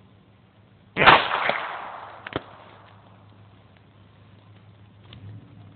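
A single pistol shot about a second in, its report dying away over about a second, followed a little later by a short sharp click.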